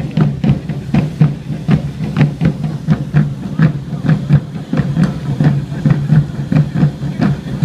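Drums beating a quick, even rhythm, about three strikes a second, with crowd voices under them.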